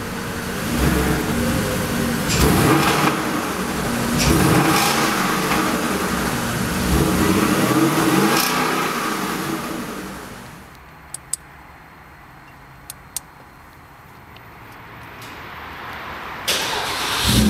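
Porsche Cayenne GTS V8 exhaust as the engine is revved in several rises and falls over the first ten seconds. It then falls much quieter for several seconds, with a few faint clicks, and rises loudly again near the end.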